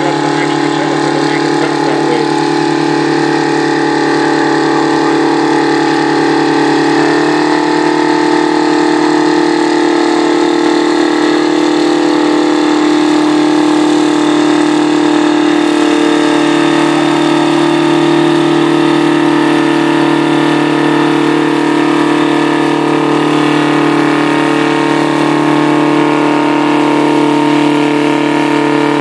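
Detroit Diesel 4-53 in a Cockshutt 1900 tractor, a four-cylinder two-stroke diesel known as a "screaming Jimmy", running steadily at high revs with its high-pitched scream. Its pitch steps up slightly about seven seconds in.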